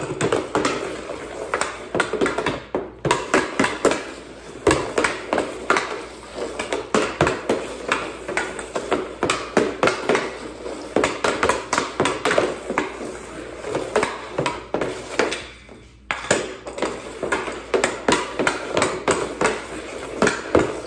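Hockey stick blade and a dryland puck clacking on plastic shooting tiles during fast stickhandling: an uneven, rapid run of sharp clacks, several a second, with a short break about 16 seconds in.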